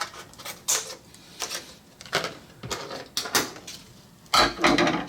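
Small hard objects handled and set down on a workbench while epoxy is got ready: a series of light clicks and taps, then a louder knock and rattle near the end.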